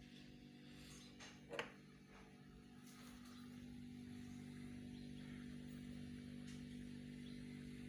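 Faint steady low electrical hum, with one brief knock about one and a half seconds in.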